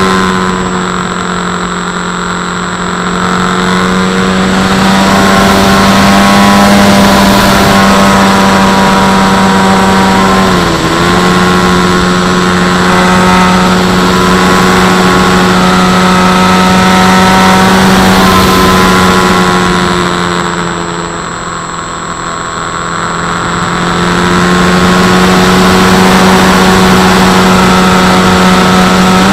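FX-79 flying wing's electric pusher motor and propeller running in flight at a steady pitch, with air rushing past the onboard camera. The pitch dips briefly about eleven seconds in, and the sound eases off twice, near the start and about two-thirds through.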